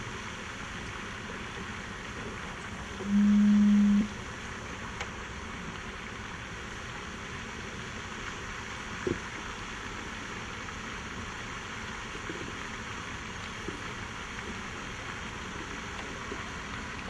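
Steady background hiss with no speech or music. About three seconds in, a loud low steady tone sounds for about a second, and there is one soft knock around the middle.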